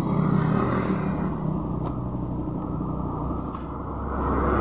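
Motor vehicle engine running steadily as a low rumble, growing louder near the end.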